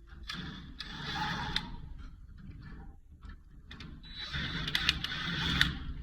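A screw being turned back into a gas furnace's burner assembly by hand: metal scraping and small clicks in two stretches of about a second each.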